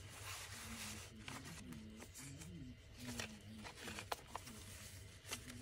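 Paper pages and a card tag of a handmade junk journal being handled and turned: a soft rustle followed by scattered small taps and clicks of paper. A faint, low, wavering tone runs underneath.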